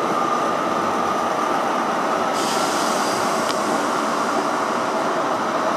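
Diesel engines of InterCity 125 HST Class 43 power cars running at a station platform: a steady drone with a faint whine. A hiss joins in sharply about halfway through.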